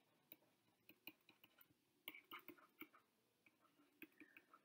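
Near silence with faint, irregular clicks and taps of a stylus on a tablet screen during handwriting.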